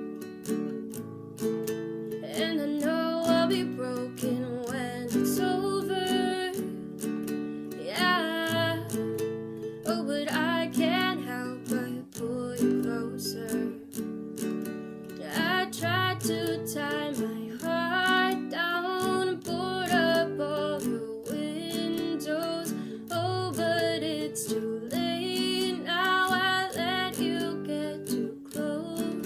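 Music: an acoustic guitar strummed and picked, with a voice singing a melody over it from about two seconds in.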